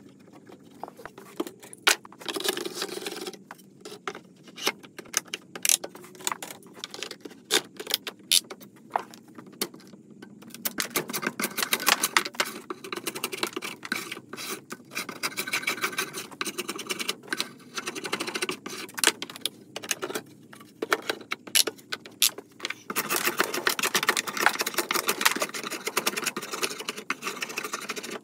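Metal bar clamps clicking and knocking as they are set and tightened. Then, about ten seconds in, a draw knife shaves the bark off a live-edge wood slab in rapid, repeated scraping strokes.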